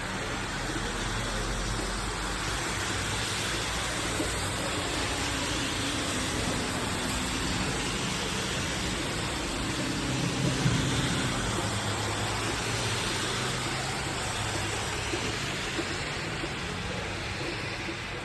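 Heavy thunderstorm rain falling steadily, with a low rumble that swells briefly about ten seconds in.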